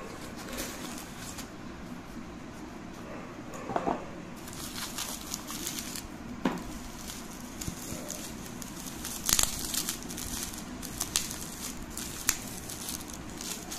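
Bubble wrap and paper packing crinkling and rustling as they are handled, with scattered sharp crackles and clicks.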